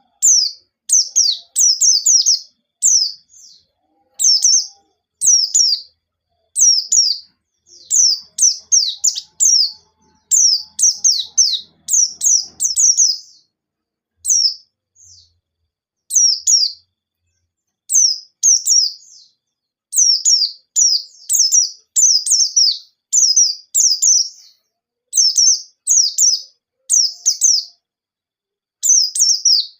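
A white-eye (pleci) singing in fast strings of sharp, high chirps, each note slurring downward, in phrases separated by short pauses; there is a longer lull about halfway through.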